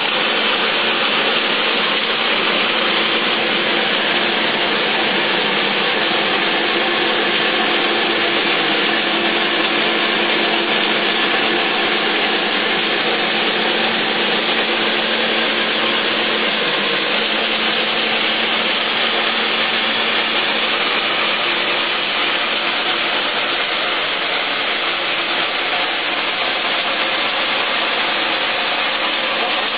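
A corn peeling machine running steadily: a dense mechanical whirr over a constant hum, easing slightly in loudness near the end.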